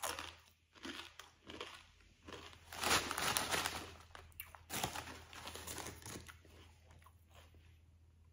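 Crisp bag crinkling in irregular bursts as a hand rummages inside it for a chip, loudest about three seconds in.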